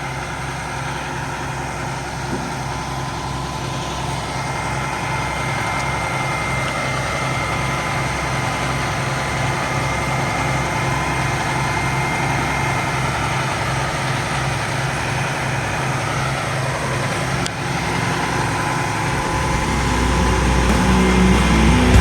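Truck engine running steadily to power a Palfinger Tree-Mek knuckle boom crane loading the truck with its grapple. A steady high whine sits over the low hum.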